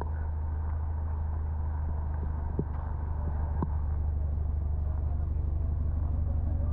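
Car engine running steadily with tyre and road noise while driving slowly on a narrow road, getting gradually a little louder. Two light clicks near the middle.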